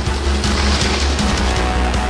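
Loud soundtrack music with a heavy bass and a steady driving beat.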